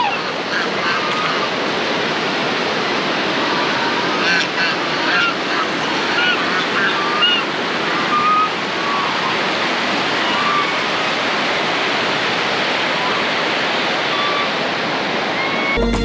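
Steady rush of water from a tall waterfall, about 180 feet high, with short high-pitched sounds scattered over it in the first ten seconds. Guitar music cuts in right at the end.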